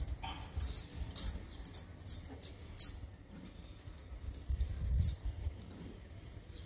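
Glass bangles clinking and jangling in short, irregular bursts as stacks of them are lifted off the table by hand, the sharpest clink about three seconds in, over a low handling rumble.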